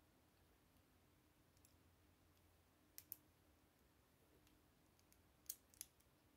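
Plastic Lego bricks clicking as they are pressed together and handled. There are two sharp clicks about three seconds in and two more near the end, over faint steady room hum.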